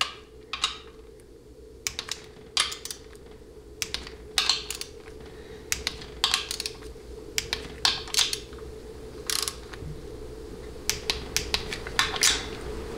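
Torque wrench ratcheting and clicking on the valve body bolts of a 700R4 transmission as each is checked at 98 inch-pounds: short sharp metallic clicks in irregular clusters.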